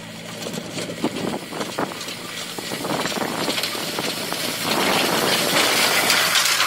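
Farm tractor engine running steadily as it pulls a pumpkin-harvesting implement through the field, growing louder as it comes close. The implement's rattle and clatter rise over the engine in the second half.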